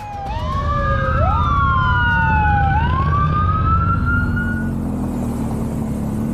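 Police sirens wailing, two or more at once, their tones sliding up and down across each other over a low engine rumble. The sirens stop after about five seconds.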